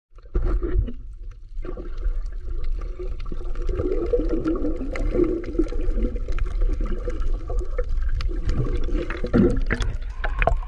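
Muffled underwater water noise through a submerged action camera: a steady low rumble with gurgling and scattered small clicks.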